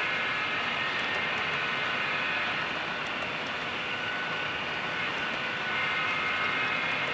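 HO scale model double-stack container train rolling past: a steady whirring of wheels on the track with a high, even whine over it and a few faint clicks.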